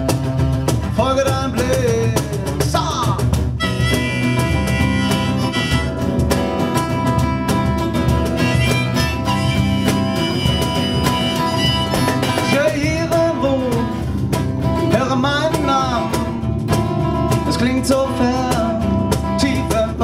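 Live acoustic band playing an instrumental passage: strummed steel-string acoustic guitar with drums and hand percussion, and a bending melody line over it in the middle.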